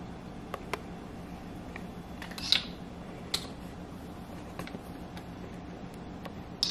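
A plastic measuring spoon clicking and tapping lightly against a bowl while milk is measured out, about seven short taps with the sharpest about two and a half seconds in, over a steady low hum.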